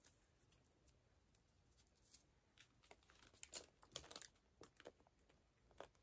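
Near silence, with faint rustling and a few soft clicks from about halfway in as plastic hair clips are handled and snapped into hair.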